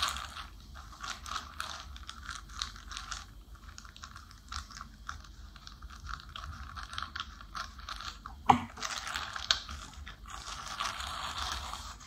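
Scissors snipping through a plastic courier mailer bag, with the plastic crinkling under the hands: a dense run of short irregular clicks and crackles, with one sharper click about eight and a half seconds in.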